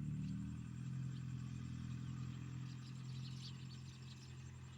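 A small engine running with a steady low hum that slowly fades, with faint high chirps about halfway through.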